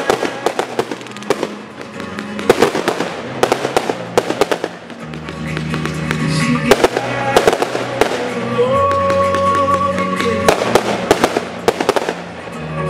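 Aerial fireworks shells bursting and crackling in rapid succession, over music with held notes.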